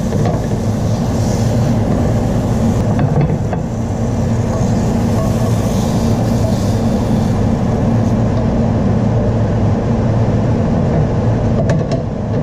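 A steady low mechanical hum, like a fan or appliance motor running, with a few light clicks near the end.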